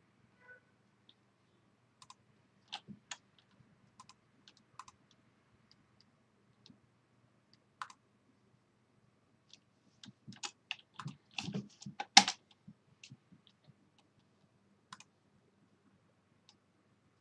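Computer keyboard and mouse clicks: scattered single clicks, then a quick run of key presses about ten to thirteen seconds in, the loudest near twelve seconds in, as a web address is typed.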